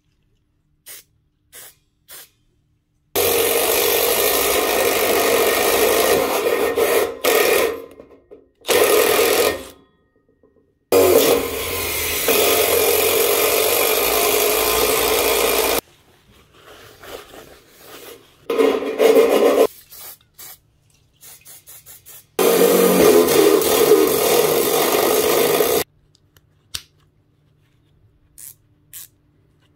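Milwaukee M12 driver spinning a hole saw through steel trunking in several steady runs of a few seconds each. Lighter metallic clinks and rattles come between the runs, and a few ratchet clicks near the end as a fixing is tightened.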